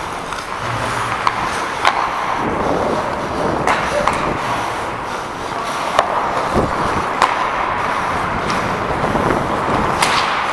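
Ice hockey skates scraping and carving on the rink ice, heard close from a player-worn camera, with several sharp clacks of sticks striking the puck.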